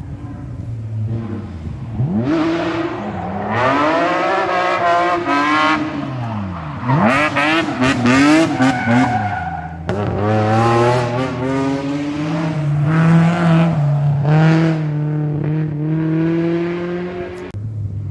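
Historic rally car engine revving hard on a special stage: the note climbs and drops with gear changes, a run of quick sharp revs up and down in the middle, then it pulls strongly with a long rising note in the second half.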